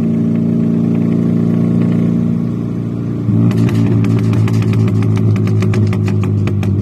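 Four-cylinder truck engine with true dual exhaust running at a steady idle, then from about three seconds in it turns rough and choppy, with a rapid string of sharp pops from the pipes. This is the problem that comes from running it without the O2 sensors hooked up.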